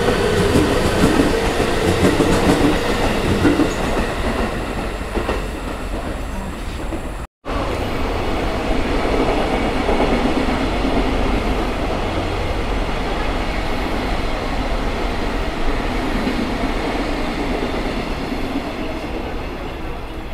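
Electric railway trains running through a station, a steady rail noise that drops out for a moment about seven seconds in.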